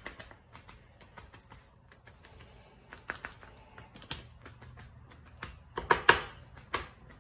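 Paper towel patting raw chicken thighs on a metal sheet pan: a run of light pats and paper rustles, with a louder cluster of pats about six seconds in.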